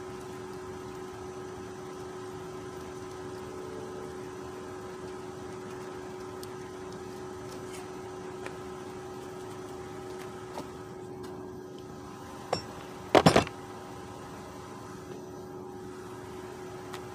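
A steady low mechanical hum with a few constant tones runs under everything. A little past halfway comes one sharp knock, then about half a second later a brief burst of loud clattering knocks, the loudest sound: hard parts being knocked and handled while the crash-damaged front end of a car is taken apart.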